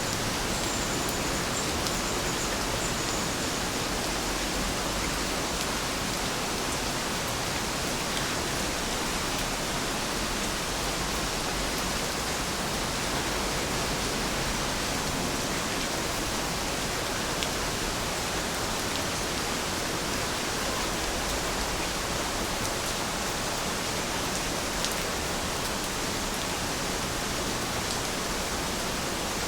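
Steady rain, an even hiss with a few faint separate drop ticks.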